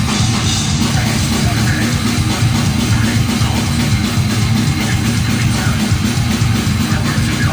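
Live thrash metal band playing: heavily distorted guitars and fast, pounding drums, loud and dense throughout, as recorded from the crowd.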